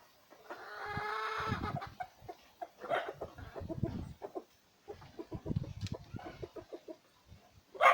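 Farmyard animal calls: one long drawn-out call about a second in, then shorter calls among knocks and thumps, and a sharp loud sound near the end.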